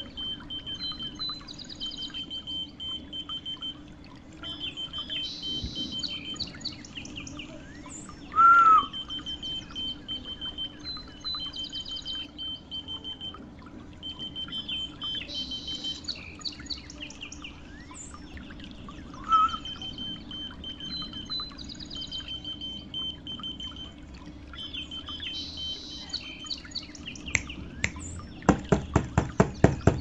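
Two short, sharp whistles, and near the end a whistle-activated key finder keychain beeping rapidly and loudly, about five beeps a second, as it answers a whistle. Birds chirp in the background throughout.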